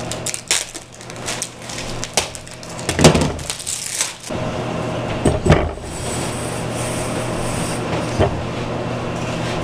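Handling noises of a roll of automotive carpet being set down and spread over a wooden table: a run of knocks and thumps on the wood, then a steadier noise for the last few seconds.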